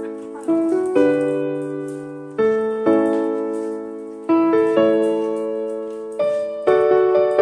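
Background piano music: slow chords struck in pairs, each ringing and fading before the next.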